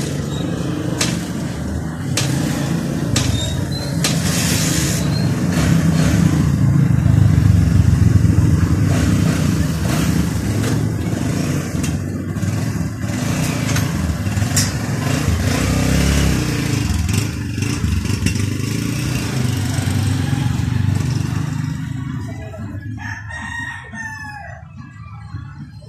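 A loud low rumble that swells about a third of the way in and fades toward the end, then a rooster crowing near the end.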